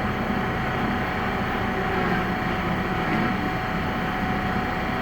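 A large Heyligenstaedt 400A/30 engine lathe running steadily, its spindle gearbox and drive making an even mechanical hum with a thin constant whine.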